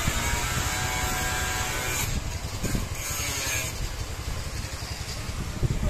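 Angle grinder cutting steel rebar: a steady motor whine with grinding hiss, which thins and eases about two seconds in.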